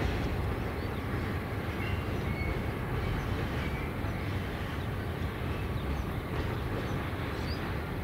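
EMD two-stroke diesel locomotive engines running with a steady low rumble that neither rises nor falls.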